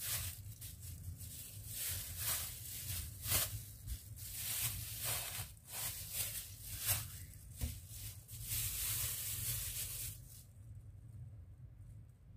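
A clear plastic bag crinkling and rustling in irregular crackles as it is waved and squeezed by hand, stopping about ten seconds in.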